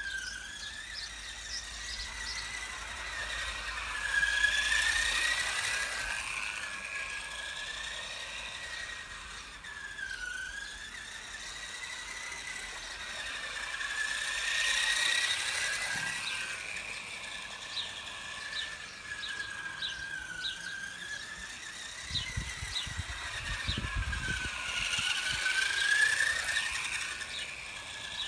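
Electric drive motor and gears of a small self-driving RC car whining as it laps. The pitch rises and falls every few seconds as the AI-controlled throttle speeds it up and slows it down, and it grows louder about every ten seconds as the car passes close by.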